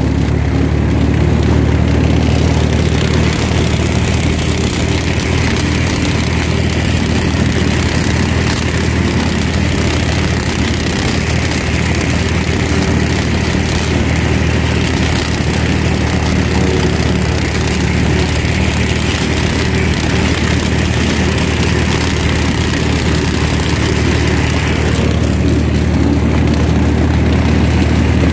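IMT 533 tractor's three-cylinder diesel engine running steadily under load, driving a PTO mulcher that shreds dry corn stalks. The level holds even throughout.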